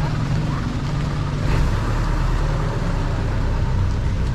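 Street traffic: a motor vehicle's engine running close by with a steady low rumble, over a general hiss of street noise.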